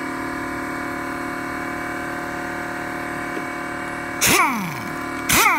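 Pneumatic impact wrench triggered twice in short bursts about a second apart, spinning freely with a rush of air and winding down in pitch each time. Under it an air compressor runs steadily, filling its tank.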